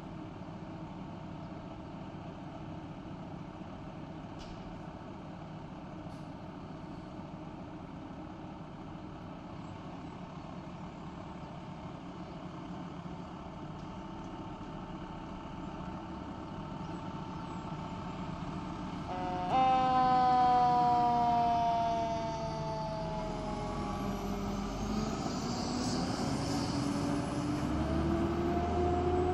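Seagrave fire engine's diesel idling with a steady low hum. About two-thirds of the way through, a loud siren tone starts abruptly and slowly sinks in pitch. A lower siren wail then winds up, rising steadily as the engine pulls out.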